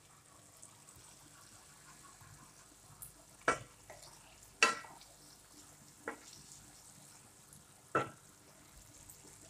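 Wooden spatula stirring sliced marrow frying in a pot, over a faint steady sizzle. The spatula knocks sharply against the metal pot four times, two close together in the middle of the stretch, one soon after, and a last one near the end.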